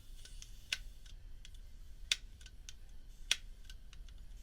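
Zippo Blue butane lighter being worked with the thumb: three sharp clicks about a second apart with fainter ticks between, from a stiff, clunky striking mechanism that takes hard thumb pressure.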